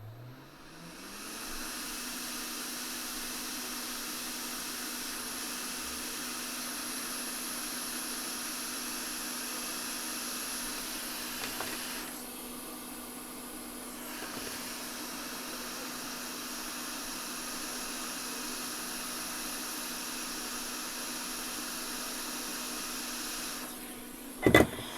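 Quick 861DW hot air rework station blowing: its fan spins up with a rising hum, then runs with a steady hum and airy hiss before cutting off near the end, followed by a sharp click. The hot air is being used to lift a donor capacitor off a donor board.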